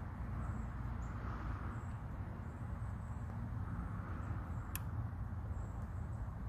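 Steady low hum over outdoor background noise, with faint high chirps and a single sharp click near the end.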